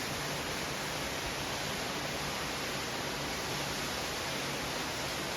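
Steady, even rushing of a nearby waterfall.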